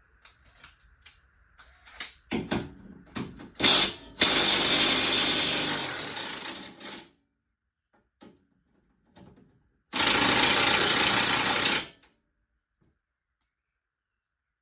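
A cordless power tool, most likely an impact wrench, run on a car-body bolt in two bursts: one of about three seconds that fades away, then one of about two seconds that cuts off sharply. A run of metal clicks from the socket and tool being fitted comes before the first burst.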